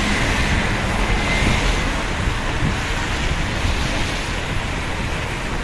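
Steady rush of city road traffic, with wind buffeting the phone's microphone.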